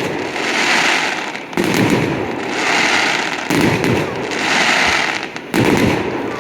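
Fireworks display: a sharp bang about every two seconds, three times, each followed by a run of crackling that fills the gap until the next.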